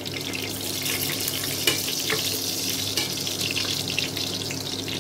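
Pork belly cubes frying in hot oil in a steel pot: a steady crackling sizzle with scattered sharp pops and clicks.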